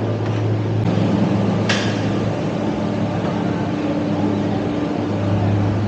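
Steady low hum of the Ngong Ping 360 cable car terminal's rope-drive machinery as the cabin passes through the station, with a short hiss about two seconds in.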